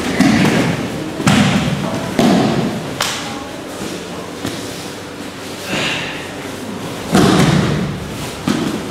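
Bodies hitting gym mats in breakfalls, a series of thuds about a second apart over the first three seconds, then another about seven seconds in.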